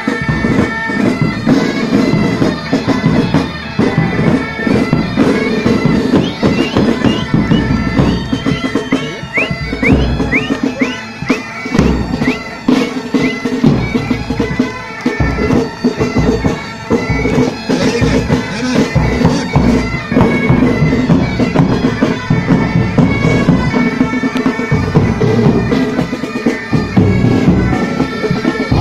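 Pipe band playing: bagpipes sounding a tune over their steady drones, with side drums and tenor drums beating along.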